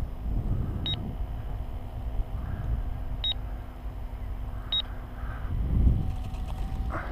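Three short, high-pitched electronic beeps, spaced unevenly a second or two apart, over wind rumbling on the microphone.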